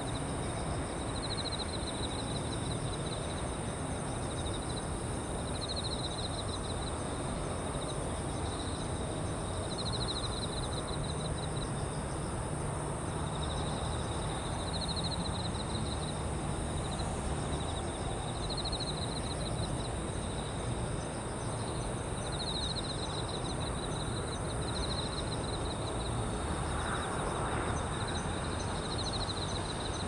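Japanese bell crickets (suzumushi) calling: a high, ringing pulsed trill about a second long, repeated every few seconds. Under it run a steady high-pitched insect drone and a low distant city rumble.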